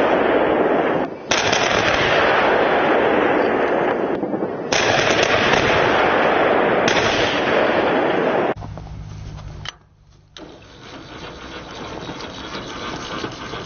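Sustained military artillery and rocket fire: a dense, loud rushing roar of rapid firing, broken by edit cuts about a second in and near the middle. About two-thirds of the way through it gives way to a much quieter low steady hum and faint hiss.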